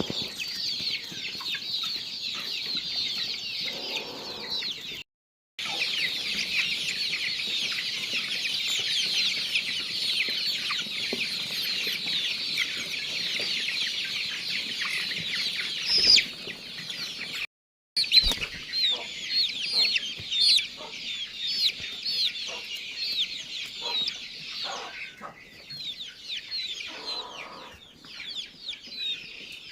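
A large flock of chicks peeping together in a dense, high-pitched chorus, cutting out briefly twice. In the second half it thins to more separate peeps.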